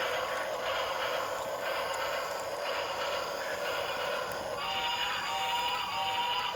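Battery-powered toy train running on its plastic track: a steady whirring rattle with a faint regular pulse about once a second. About two-thirds of the way in, a two-tone electronic sound starts and holds, breaking off briefly now and then.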